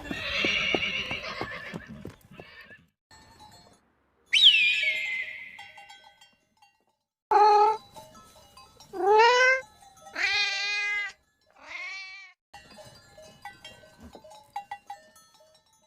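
Several different animal calls one after another, each a separate cry. One is a sharp falling screech about four seconds in, and four shorter pitched calls follow between about seven and twelve seconds in.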